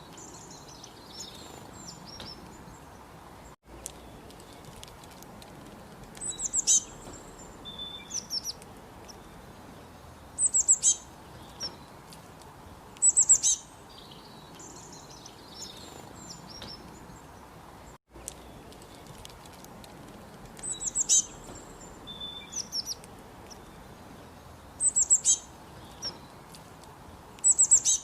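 Small birds chirping: clusters of short, high-pitched notes, some sliding down in pitch, repeating about every two to three seconds over a steady low hiss.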